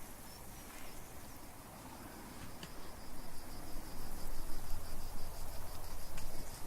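An insect chirring in a fast, even pulse from about two and a half seconds in, over low rustling that grows louder as hikers move off on foot.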